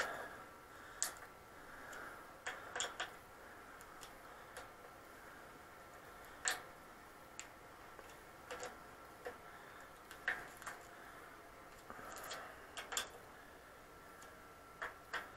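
Sparse, irregular light clicks and ticks of a hand tool working the handlebar stem's faceplate bolts, which are being tightened in turn to close the clamp gaps evenly. Some clicks come singly, others in quick pairs or threes.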